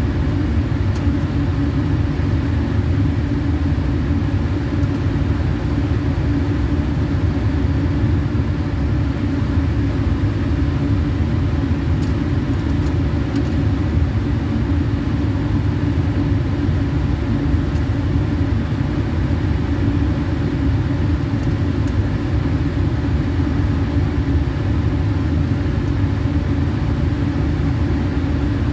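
Blower fan of a lab flow hood running: a steady, low-pitched whoosh with a faint hum, and a few faint clicks.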